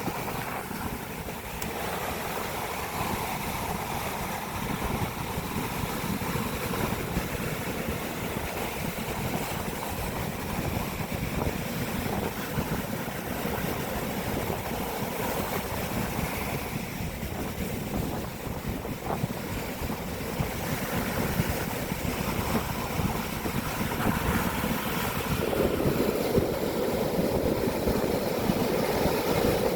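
Sea surf and wind buffeting the microphone on a beach, a continuous rushing noise that swells louder over the last few seconds; rough surf raised by a passing typhoon.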